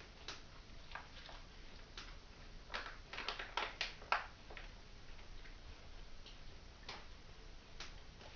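A thin plastic packet being picked up and handled, crinkling in a quick run of crackles about three seconds in, with scattered soft clicks before and after.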